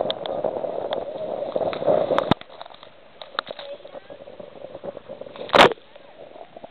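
Rushing wind and water noise aboard a small sailboat, with scattered clicks. The noise drops away abruptly a little over two seconds in, and a single loud knock comes near the end.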